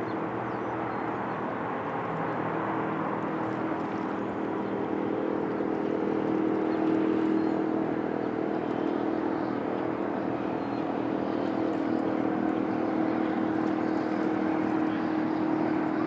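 A steady engine drone with a low, even hum of stacked tones, growing a little louder midway, over a soft hiss.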